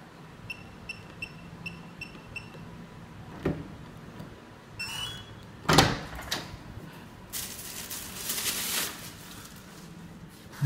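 Electronic keypad door lock beeping once for each button pressed, about six quick beeps as a code is entered. A few seconds later it gives a short rising confirmation tone, then a loud clunk as the latch and handle are worked, and a rushing noise of a second or so as the door is pushed open.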